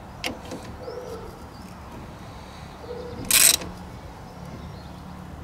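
Ratchet wrench clicking in a short burst about three seconds in as its handle is swung back, while it turns the nut on a bolt that presses a brake caliper piston back into its bore. Birds call faintly in the background.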